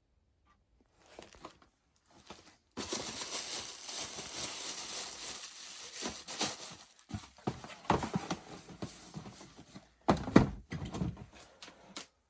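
Rustling and crinkling of packing material as shoes are unpacked from a bin, starting about three seconds in, with a loud thump about ten seconds in.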